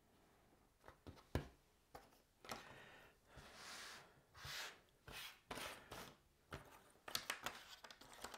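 Cardboard jigsaw puzzle pieces being slid and spread over a wooden table by hand: soft rustling with scattered light clicks and taps, the loudest a single tap about a second and a half in, and a quick run of clicks near the end.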